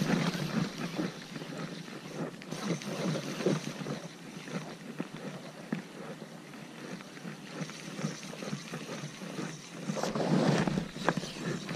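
Water lapping and sloshing against jetty rocks, with some wind noise on the microphone; a larger surge washes in about ten seconds in.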